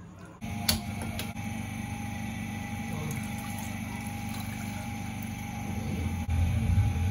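Milk poured in a steady stream from a glass bottle into a stainless steel pan, starting about half a second in after a couple of clicks, with a low rumble growing louder near the end.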